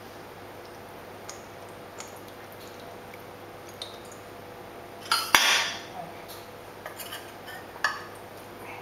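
Kitchen handling sounds as a soy sauce bottle and a ceramic baking dish are worked on a stone countertop: a few light knocks, a louder clatter about five seconds in, then a few more light knocks.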